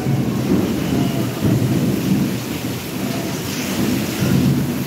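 Thunder rumbling on and off throughout, swelling and easing, over a steady hiss of rain.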